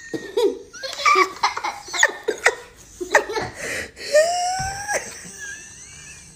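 Choppy bursts of laughter mixed with a toddler's crying whine, including one drawn-out wail about four seconds in.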